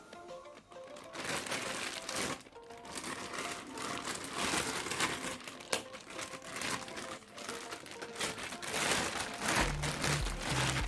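Packaging crinkling and rustling as it is handled and unwrapped, in irregular bursts that are loudest near the end, over background music.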